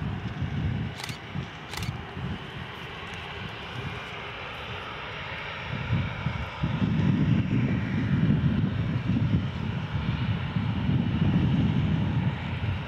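Boeing 737-400's CFM56 jet engines running at taxi power: a steady whine and hiss over a low rumble. The sound gets louder from about halfway through as the aircraft turns toward the listener and passes.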